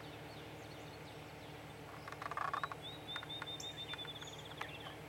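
Songbirds calling: quick chirps, then a long high trill of rapid repeated notes that speeds up toward the end, over a steady low hum. About two seconds in, a brief louder burst of clicking.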